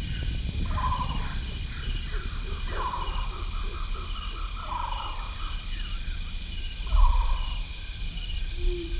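Jungle soundscape: four warbling animal calls over a steady run of high chirps repeating about twice a second, with a low rumble underneath.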